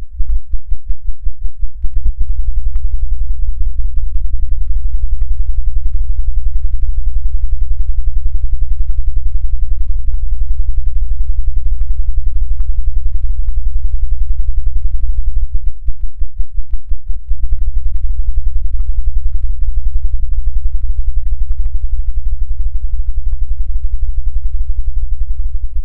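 Electric shock sound effect: a loud, low buzz pulsing rapidly. It stutters in short bursts in the first couple of seconds and again about sixteen seconds in.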